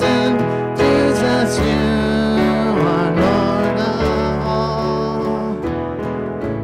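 Live worship music: acoustic guitar and keyboard playing a slow song, with singing.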